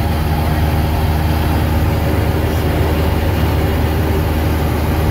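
Light airplane's engine and propeller droning steadily, heard inside the cabin in flight, with an even, unchanging pitch and level.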